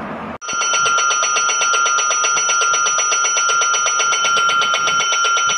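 Station platform electric bell ringing continuously with a rapid, even clatter and a shrill steady tone. It starts abruptly about half a second in. It is the warning bell that announces an approaching train.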